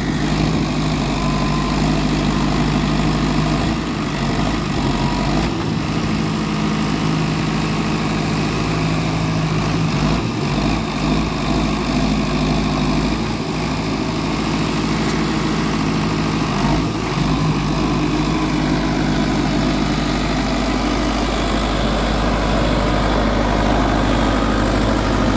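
Sonalika DI 55 tractor's diesel engine running steadily under heavy load in two-wheel drive as it pulls a 20-disc harrow, its rear wheels spinning and digging into the soil.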